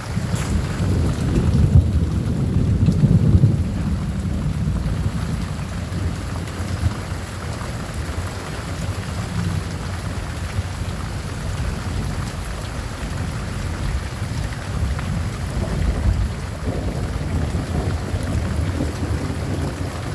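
Thunder rumbling over steady rain. The rumble is loudest a couple of seconds in, then carries on as a lower rolling rumble.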